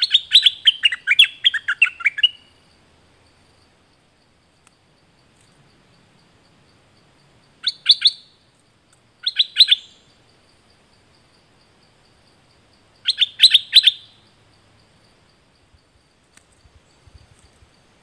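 Caged stripe-throated bulbul singing in bursts of rapid, clear notes. The opening phrase lasts about two seconds and steps down in pitch. Three shorter bursts follow in the second half.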